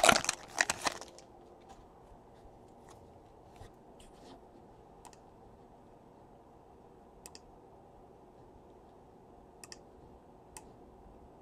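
Foil trading-card pack wrapper crinkling in the hands for about a second. After that, a quiet room with a few faint, light clicks as the cards are handled.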